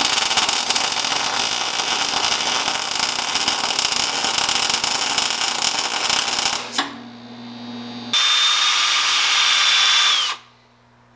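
Wire-feed welder crackling steadily for about six and a half seconds as the cut at a bent steel tab's bend is fill-welded. After a short pause, a cordless drill fitted with a wire wheel spins for about two seconds, its high whine dipping as it stops, brushing the fresh weld clean.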